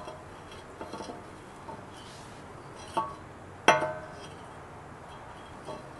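Cast-iron brake rotor clinking against the hub and wheel studs as a re-drilled rotor is fitted over a 5-lug hub and turned by hand. A few faint ticks come about a second in, then two ringing metallic clinks about three and four seconds in, the second the loudest.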